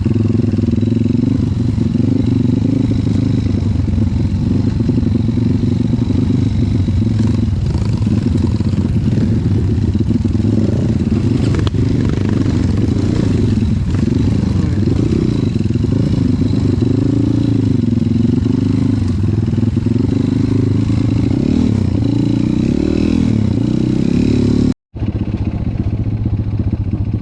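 Dirt bike engine running, its pitch rising and falling with repeated revs through the second half. The sound drops out for an instant near the end, then carries on.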